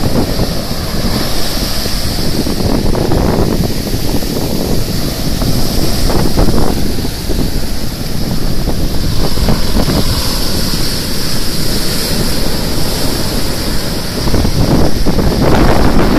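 Ocean surf breaking and washing up a sandy beach, swelling and easing with each wave, with wind buffeting the microphone.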